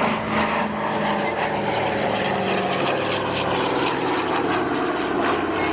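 Douglas Dakota (C-47) flying low past at about 175 mph: the steady drone of its two Pratt & Whitney Twin Wasp radial engines and propellers, with the pitch falling slightly as it goes by.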